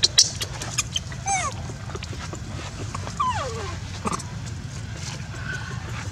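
Baby macaque squealing: two short calls that fall steeply in pitch, about a second in and again about three seconds in, with a brief higher cry after them. A few sharp clicks come at the very start.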